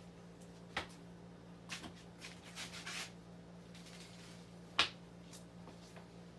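Casablanca Panama II ceiling fan motor humming steadily, running in reverse on low speed, with a few scattered sharp clicks, the loudest near the end.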